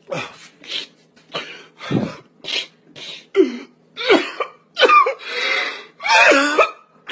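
A person's fit of short, breathy vocal bursts, about a dozen in quick succession, some with a rising and falling voiced edge, of the kind heard in hard coughing or helpless laughter.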